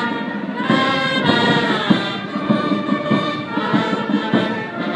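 Brass band playing a tune, sustained brass chords shifting in pitch.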